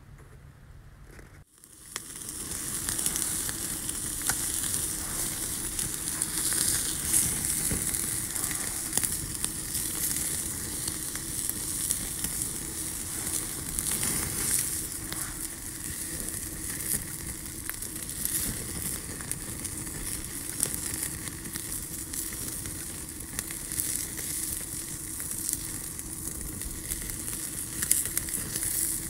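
Chicken pieces sizzling on a wire grill grate over an open wood campfire, a continuous hiss with many small crackles and pops. It starts abruptly about a second and a half in.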